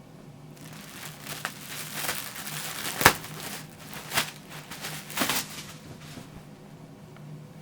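Packaging crinkling and rustling as it is handled, with several sharp crackles, the loudest about three seconds in, before it dies down near the end.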